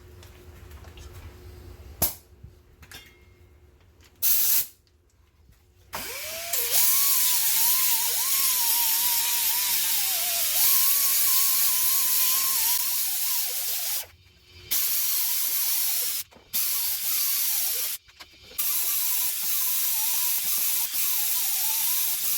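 Hand-held power tool: a short burst about four seconds in, then it spins up about six seconds in and runs with a loud hiss and a wavering whine. The trigger is let go briefly three times.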